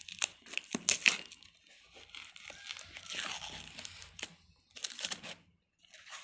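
Sticker being peeled and torn off a delivery box, with the packaging crinkling. Irregular crackles with a few sharp snaps in the first second or so, then steadier rustling, and a brief pause near the end.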